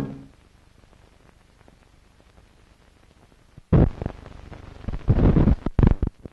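Film run-out noise from a 16mm print's soundtrack: faint hiss with light crackle and ticks after the music stops, then loud rough bursts of rumbling noise about four seconds in, and again with sharp pops near the end.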